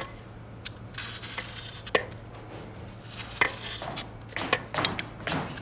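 A green apple being peeled and cut with a small blade over a bowl: soft scraping and cutting with scattered light clicks, busier near the end.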